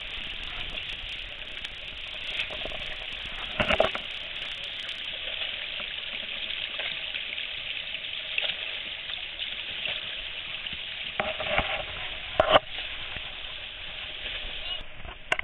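Steady rush and splash of water tumbling down a small spring-fed cascade, with a few louder splashing crackles about four and twelve seconds in.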